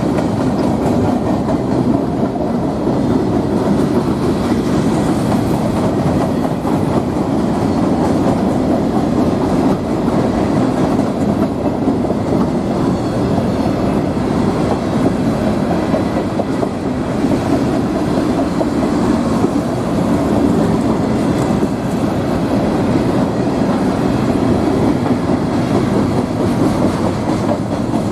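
CSX freight train rolling past, the steady rumble of its railcars' wheels on the rails.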